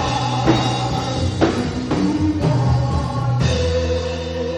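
Live praise band music with a drum kit under sustained melody notes, with drum hits about every half second to second.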